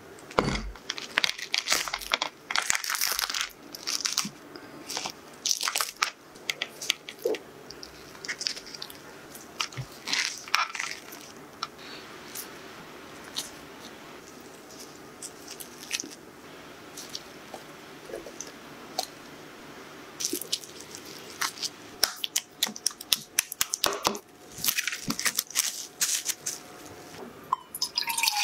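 A durian's spiky husk being cracked and torn open on a wooden cutting board and its flesh pulled out: a series of crunches, cracks and tearing sounds in bursts, with a quieter stretch in the middle.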